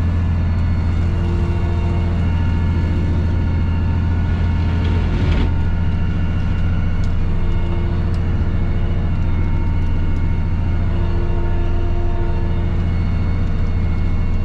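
Tractor engine running at a steady speed, a constant low drone heard from inside the cab.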